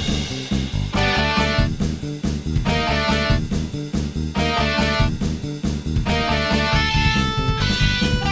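Instrumental outro music with a steady beat: short, quick melody notes over a pulsing bass line.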